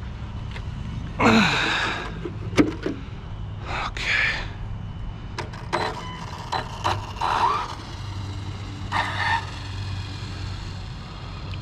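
Traxxas Slash 4x4 RC car with a Hobbywing 4274 brushless motor and Max 6 controller driving off down an asphalt road, over a steady low rumble. Several short rustling bursts and sharp clicks stand out, the loudest about a second in.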